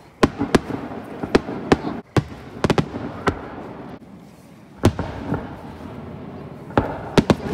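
Aerial fireworks shells bursting in a rapid series of sharp bangs, several a second at first. There is a lull about four seconds in, then a quick cluster of bangs near the end.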